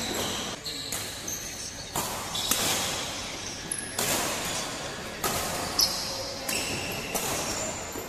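Badminton rally: sharp racket strikes on the shuttlecock about every second, mixed with footfalls and short high squeaks of shoes on the court mat, in a large hall.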